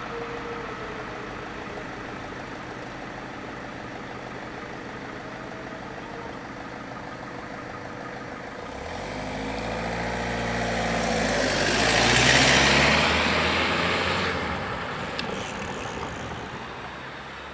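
A road vehicle drives past close by: engine and tyre noise swell over several seconds to a peak about twelve seconds in, then fade away as the pitch drops.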